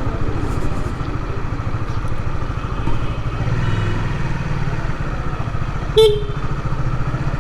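Motorcycle engine running steadily while riding, heard from the bike with road noise. One short horn beep about six seconds in.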